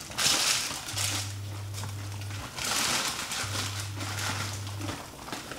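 A pot of baso aci simmering on the stove with a crackling sizzle, louder in two bursts near the start and about two and a half seconds in, along with rustles of handling. A low hum switches on and off about every two and a half seconds.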